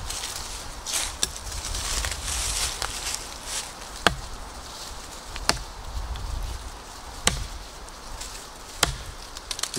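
A large fixed-blade survival knife, the Work Tuff Gear Hemlock ARES, chopping into a standing green sapling trunk: about five sharp chops roughly a second and a half apart. Dry leaves rustle during the first few seconds.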